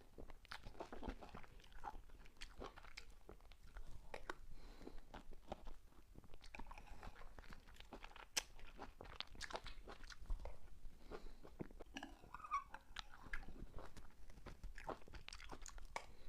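Close-miked eating of whipped cream cake: soft chewing and wet mouth sounds with many short, sharp clicks scattered throughout.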